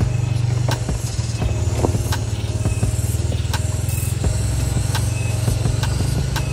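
A large engine running steadily with a low drone, with scattered sharp clicks and knocks over it.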